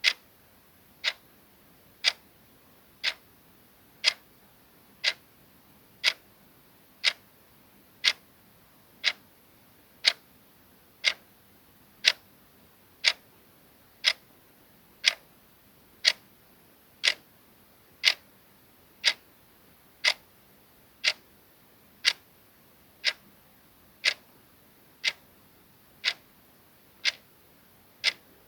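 Soft clock ticking sound effect, a steady tick once a second.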